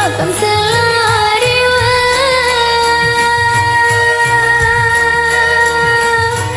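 A woman singing over a karaoke backing track with bass and a steady beat. She sings an ornamented phrase, then holds one long note that ends near the end.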